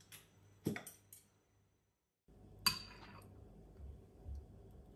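Ceramic tableware clinking on a table: a few light knocks in the first second or so, then one sharper clink with a short ring about two and a half seconds in.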